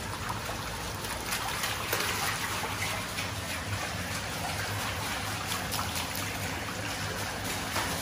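Shallow water running steadily over the floor of a concrete culvert, with light splashing from dogs wading through it.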